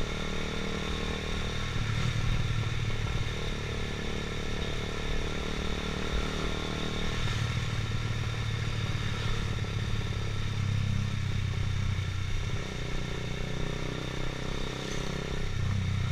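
Motorcycle engine running while the bike is ridden along: a steady hum over a rush of noise, its pitch shifting slightly a few times as the speed changes.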